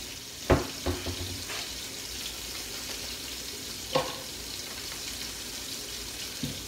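Roast searing in grease in a skillet: a steady sizzle. Over it come a few sharp knocks, two close together about half a second in, another about four seconds in, and a lighter one near the end.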